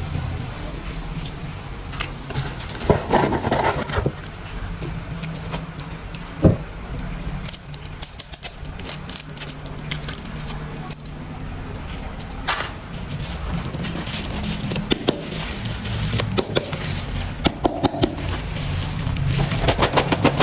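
Irregular clicks, taps and rattles of plastic toy train parts being handled and fitted together, over a low steady hum.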